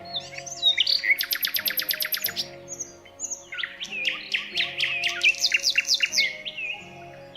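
Songbirds singing: a fast trill of high, rapidly repeated notes about a second in, then a longer phrase of quick chirps and whistles from about three and a half seconds. Soft sustained background music plays underneath.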